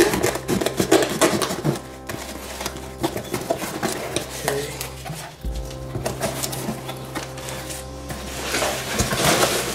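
A knife slicing and scraping through packing tape on a cardboard shipping box, then the cardboard flaps pulled open. Near the end there is rustling of foam packing peanuts. A steady low hum runs underneath.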